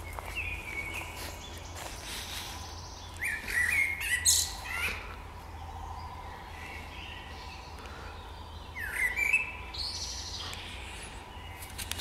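Songbirds singing in the treetops: several short, quick, warbling phrases with sweeping notes. The two loudest come about three seconds in and about nine seconds in, with softer calls near the start and the end.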